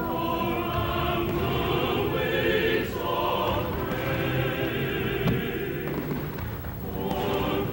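Music with choral singing, long held notes at an even level, and one short crack about five seconds in.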